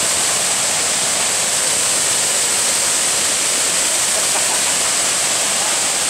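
Tiered waterfall cascading over rock ledges into a pool: a steady, loud rush of falling water.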